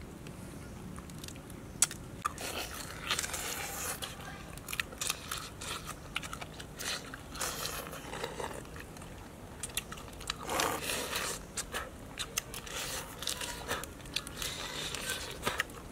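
Mantis shrimp shells being cracked, peeled by hand and chewed close to the microphone: a run of short, irregular crackles and crunches with a few louder bites.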